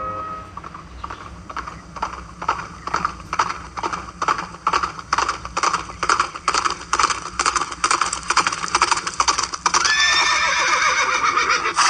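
Horse's hooves clip-clopping, growing louder as it approaches, then the horse neighing near the end.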